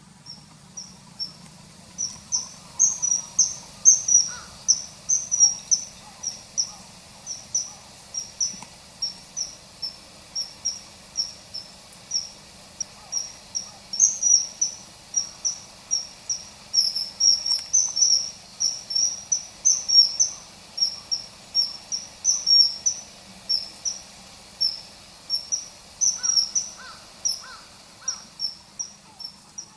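Common kingfisher calling: a rapid series of short, high, piercing notes, about two or three a second, over a faint low hum.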